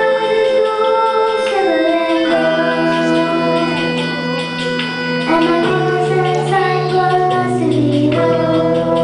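Children singing a song together with instrumental accompaniment, the voices holding long notes over sustained backing chords.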